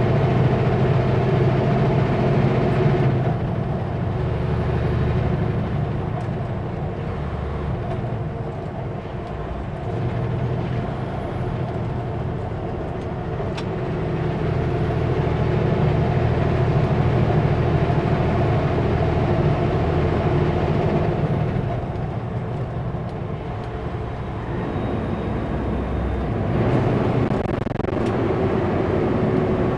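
Kenworth W900L semi truck's diesel engine running steadily while driving, with the engine note easing a couple of times and building again.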